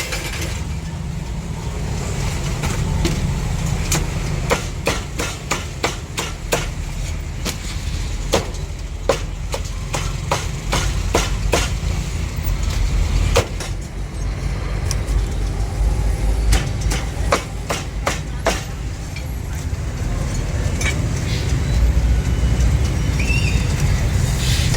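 Steady low rumble with many sharp, irregular knocks over it, most of them packed into the middle of the stretch.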